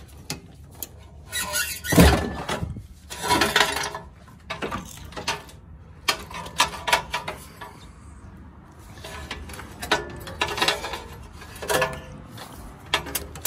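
Old gear-shift cables of a Porsche Boxster 986 being pulled out from under the car: irregular scraping and rustling with sharp knocks and clicks as the cables drag and bump through. The loudest knock comes about two seconds in.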